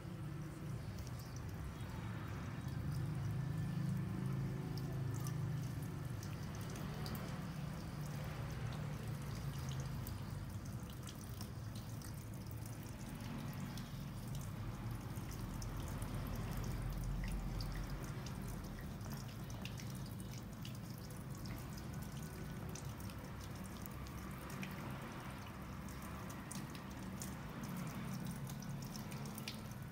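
Water dripping and trickling, with scattered small drips.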